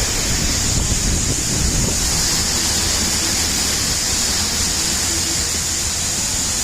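Hurricane-force wind and rain, loud and steady, with the wind's low rumble heavy on the microphone.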